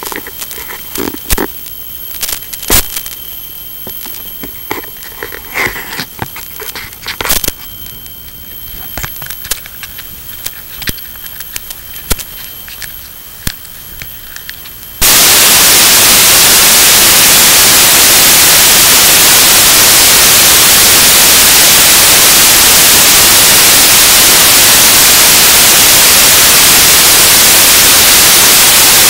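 Scattered clicks and crackles of hands handling the airframe, heard over an analog FPV video link's audio with a faint steady high whine. About halfway through, the link drops out and the FPV receiver gives loud, steady white-noise static.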